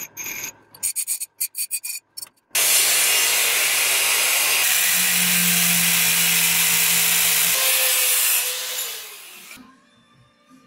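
A few short bursts of a bench grinder working a steel square tube, then an angle grinder cutting through steel tube for about six seconds, loud and steady with a hum under the cutting noise, winding down about two seconds before the end.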